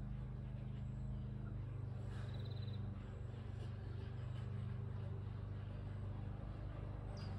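A steady low motor hum drones throughout. A faint, quick high-pitched trill comes about two seconds in, and a short high chirp comes near the end.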